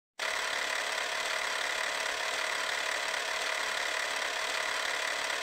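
Intro sound effect: a steady hissing, whirring noise that starts abruptly just after the start and holds at an even level.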